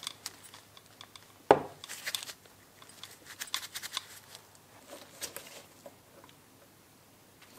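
Clicks and short rustles of disassembled angle-grinder parts being handled on a wooden bench, with one sharp knock that rings briefly about one and a half seconds in. It grows quieter near the end.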